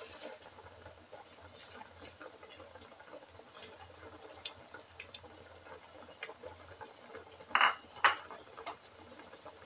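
Fish and vegetable broth simmering in a wok with a faint crackle of small bubbles. About three-quarters of the way through, two sharp clinks of kitchenware ring out half a second apart.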